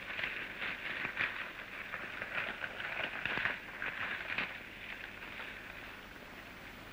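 Horse galloping down a steep, brushy slope: a crackly rush of hooves and scattering dirt that fades out about five seconds in.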